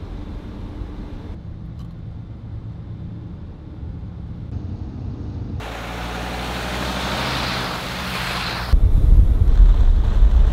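Mercedes-Benz Sprinter van driving. Its engine and road noise drone steadily at first, then road and tyre noise rises as the van approaches. About nine seconds in, a sudden loud, low rumble takes over as it comes close.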